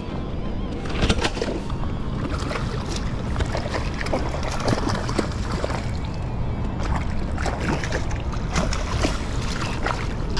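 Lake water sloshing and splashing around a float tube over a steady low rumble, with many irregular knocks and clicks from handling the catch.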